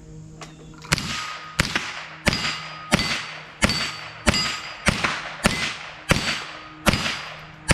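A .22 LR AR-15-style rifle firing a steady string of about ten shots, roughly one and a half a second, each with a short ringing tail: the shooter emptying the magazine.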